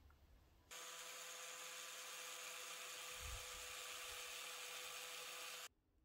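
Small electric drill running at a steady speed, drilling holes through seed beads: a steady whine with hiss that starts abruptly under a second in and cuts off about five seconds later.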